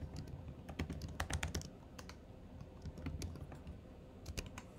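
Typing on a computer keyboard: irregular key clicks, bunched in quick runs about a second in and again near the end.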